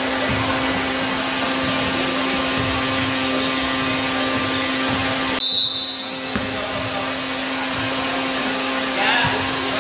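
Steady fan-like whoosh with a constant low hum, dipping briefly about halfway through.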